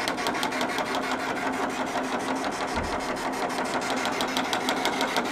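A 64-inch vinyl cutting plotter doing a perf (die) cut. The cutting head staggers up and down through the vinyl and liner in rapid, even clicks, about eight a second, over a steady hum.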